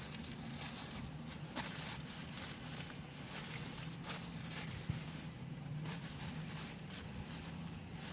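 Rustling and crinkling of takeout food packaging being handled, with a few soft knocks, over a steady low hum.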